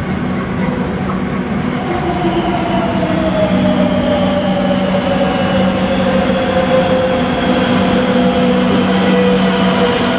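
Madrid Metro electric train pulling into the station alongside the platform, a steady hum with a motor whine that falls slowly in pitch, growing slightly louder as it comes closer.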